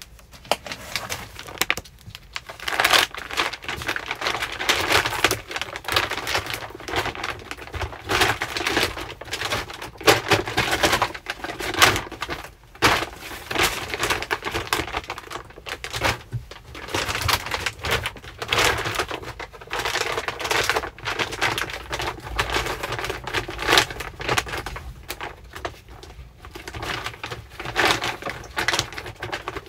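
Plastic packaging crinkling and rustling in irregular bursts as it is handled and packed.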